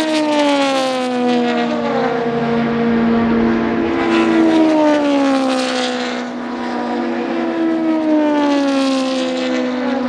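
Historic racing cars passing one after another at speed, each engine note falling in pitch as it goes by; three passes.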